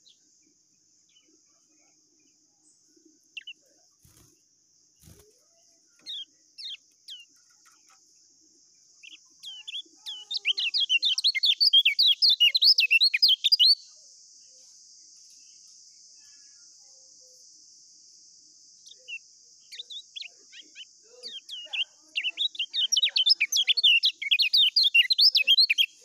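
Kecial kuning (a white-eye) singing: a few scattered short, high chirps, then two bursts of fast, dense twittering song, the 'ngejos' run kept for tutoring young birds, separated by a pause of several seconds.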